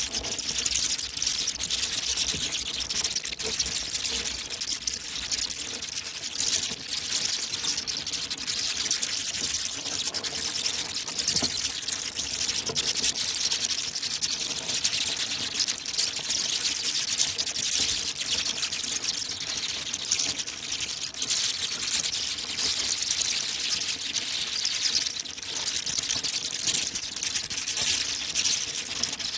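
A colony of bats chittering and squeaking together: a dense, high-pitched, unbroken chatter of many small clicks and squeaks.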